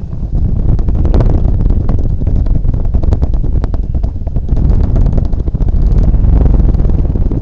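Strong wind buffeting the microphone: a loud low rumble that swells and dips in gusts, with many crackling pops.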